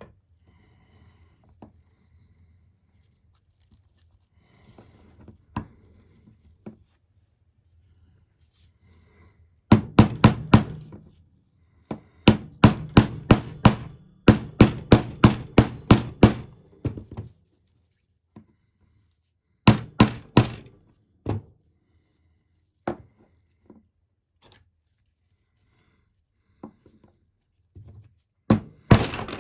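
Hammer striking metal in quick runs of about six blows a second, with pauses and a few single knocks in between: work on the windshield wiper linkage.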